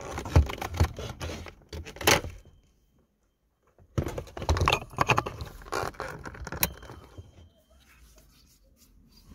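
Plastic clicks and rattling from a wiring-harness connector and its wires being worked by hand behind a car's instrument cluster, with a sharp click about two seconds in. After a short break, more clicking and rustling of the plastic and wires.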